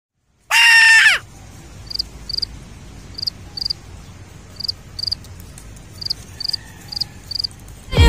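A loud shrill cry about half a second in, lasting under a second, its pitch dropping at the end. Then quiet outdoor ambience with short high chirps in pairs, one pair about every second and a half.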